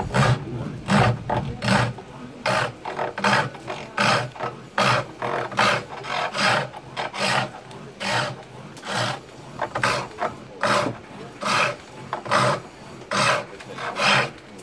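Foot-treadled pole lathe turning a small wooden honey dipper: the hand tool makes a rasping cut into the spinning wood on each treadle stroke, just over one stroke a second. The strokes stop near the end.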